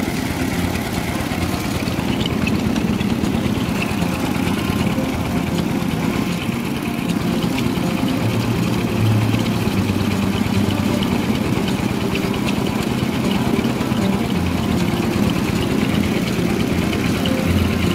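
Rice milling machine running steadily under load: a continuous engine drone with a dense, even rattle.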